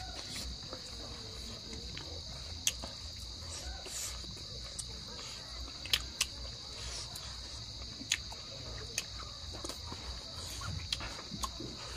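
Steady high-pitched chorus of night insects, with a few short sharp clicks from chewing and hand-eating scattered through it.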